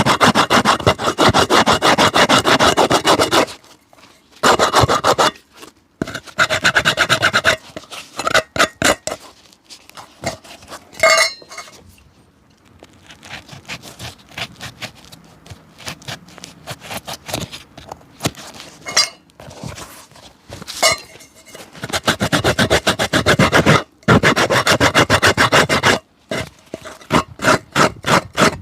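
Fast back-and-forth rubbing strokes worked over a shoe, like scrubbing or sanding, in bursts of two to four seconds. Between the bursts are quieter, scattered scratches and taps. The bursts come near the start and again through the last third.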